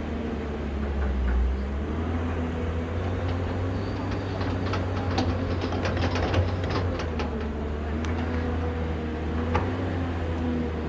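Caterpillar 312B excavator's diesel engine running steadily, with a run of sharp clanks and knocks in the middle and a couple more near the end.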